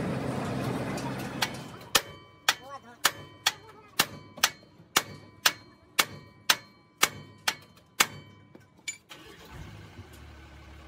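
About fourteen steady hammer blows on the steel king pin and steering knuckle of a truck's front axle, roughly two a second, each ringing briefly, part of a king pin replacement. An engine runs in the first second or so, before the hammering starts.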